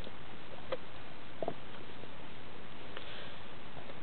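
Leonberger dog gnawing a raw meaty bone: a few scattered sharp clicks and scrapes of teeth on bone over a steady hiss.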